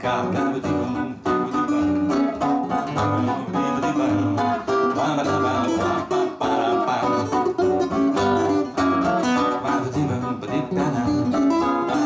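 Two acoustic guitars playing an instrumental break between sung verses, with steady rhythmic chords and plucked notes and no voice.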